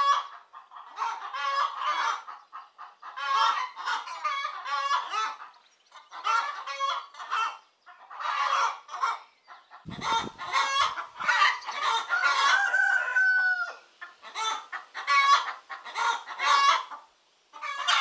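Chickens clucking in short repeated runs, with a rooster crowing once in the middle.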